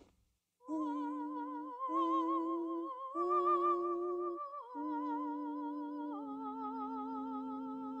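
A woman's voice singing long wordless notes with vibrato, about five notes in turn, starting after a brief silence near the start.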